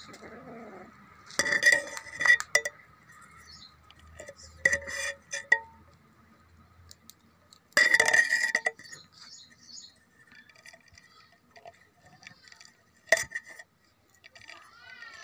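Sharp clinking, as of tableware or a food container being handled, in a few short clusters several seconds apart, the longest near the middle.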